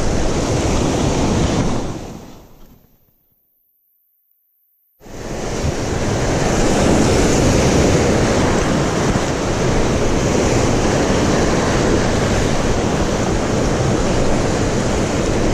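Ocean surf breaking and washing over rocks, with wind on the microphone. The sound fades out about two seconds in, goes silent for about two seconds, then cuts back in suddenly and runs steadily.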